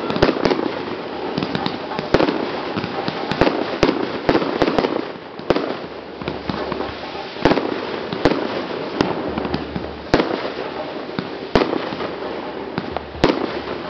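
Fireworks going off: sharp bangs and pops about every half second to a second, sometimes in quick pairs, as shots launch and burst, over a continuous hiss and crackle.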